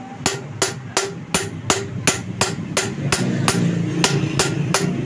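Hammer striking metal in an even rhythm, about three blows a second, each with a short ring. It is driving a bearing into a motorcycle's loose rear brake-drum hub that has been shimmed with strips of galvanized sheet so the bearing fits tight.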